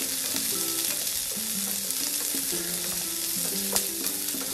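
Chopped onion, capsicum and garlic sizzling in hot oil in a nonstick pan on high flame as they are stirred with a wooden spatula, with a single sharp knock about three-quarters of the way through.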